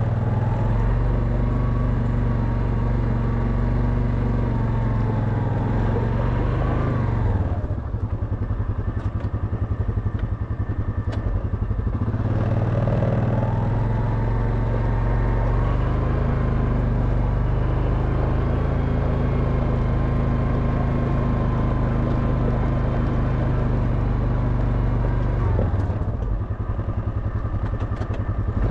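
Quad bike engine running under throttle on a gravel track. It eases off to a lower idle-like note about seven to eight seconds in, pulls again from about twelve seconds, and drops back near the end.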